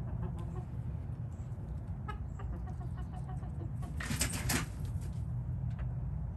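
Backyard chickens clucking softly, with a brief loud flurry of wing flapping about four seconds in, over a steady low rumble.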